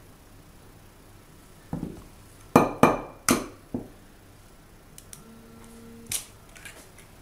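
An egg cracked against the rim of a ceramic saucer: a soft knock, then three sharp clicks in quick succession and a lighter one, with light clinks of china.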